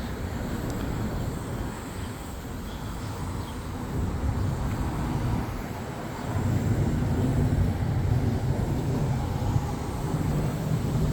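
Low outdoor rumble with no clear single source, swelling about four seconds in and again from about six seconds in.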